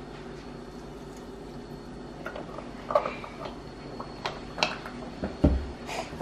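Kitchen handling noises over a steady low hum: scattered clicks and knocks from about two seconds in, then a heavier thump near the end as a carton of chicken broth is set down on the table.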